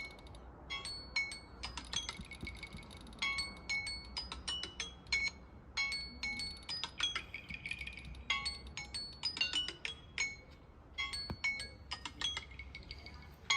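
A Samsung timer or alarm tone playing through a device's speaker: bright, bell-like chime notes in quick repeating runs, with short pauses between phrases.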